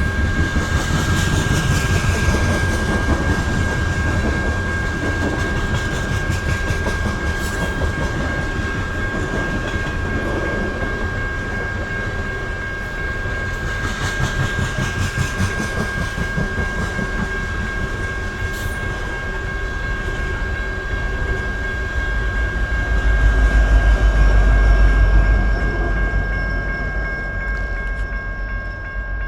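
BNSF coal train cars rolling past, their wheels clacking over the rail joints, with a steady high ringing tone and a few sharp clicks. A deeper rumble swells for a few seconds about three quarters of the way through.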